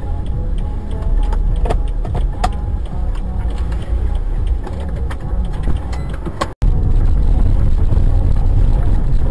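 Low road and engine rumble of a moving car heard from inside the cabin by a dashcam, with scattered light clicks and rattles. The sound cuts out briefly about six and a half seconds in, then the rumble comes back louder and steadier.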